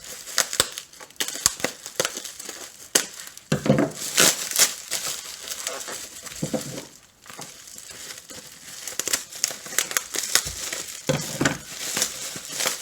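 Packing material crinkling and rustling in irregular crackly bursts as a wrapped glass piece is unwrapped by hand.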